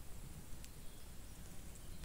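Wood campfire crackling faintly: a single soft snap a little over halfway through, over a low steady rumble.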